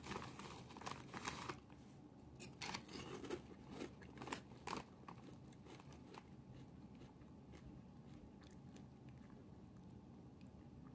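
Faint crunching of a Lay's Layers potato chip being bitten and chewed: a run of short crisp crackles over the first five seconds or so, then dying away to near silence.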